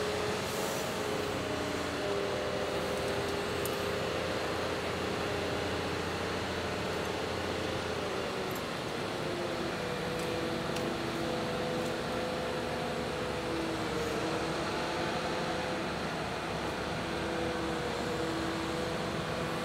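Large mobile crane's diesel engine and hydraulics running steadily, with a wavering whine that drifts slowly in pitch over a constant mechanical hum; the low hum changes about eight seconds in.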